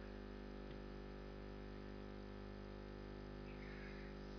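Steady electrical mains hum with a faint buzz from the sound system, in a pause between words.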